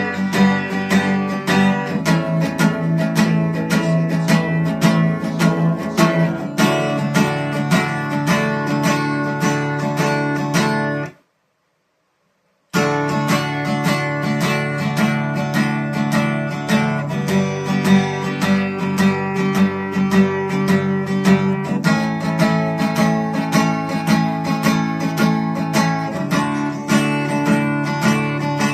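Acoustic guitar played as an instrumental passage, with quick, steady strummed and picked notes and no singing. The sound cuts out completely for about a second and a half, roughly eleven seconds in, then resumes.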